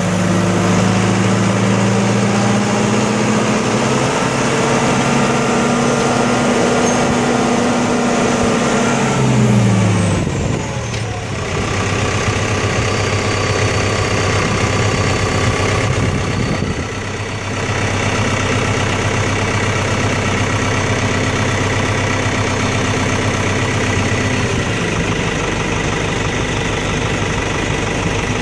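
Kubota F3060 front mower's diesel engine running steadily as it pushes snow with its front blade. Its pitch drops about ten seconds in, then holds steady.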